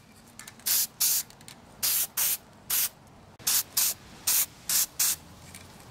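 Aerosol spray-paint can sprayed in short hissing bursts, about a dozen quick puffs at roughly two a second, putting a light coat of paint on a small plastic part.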